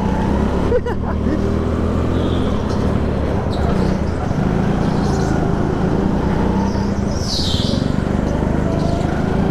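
Four-stroke go-kart engine running under throttle on track, a steady drone with small rises and dips in pitch. A brief high squeal comes about seven seconds in.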